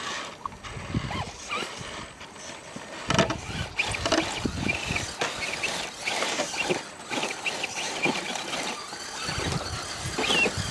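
Radio-controlled scale rock crawler picking its way over rough rocks: irregular knocks and scrapes of tyres and chassis on stone, with short squeaks in between.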